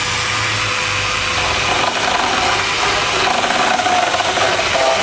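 Angle grinder fitted with a Xenon X-ECS115A chainsaw adaptor, running at full speed with its chain cutting. It is a loud, steady power-tool noise whose whine shifts pitch about a second and a half in as the chain bites.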